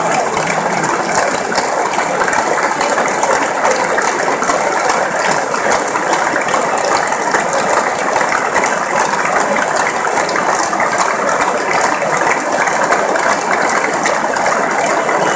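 Large stadium crowd applauding, a dense, unbroken clapping that holds steady throughout.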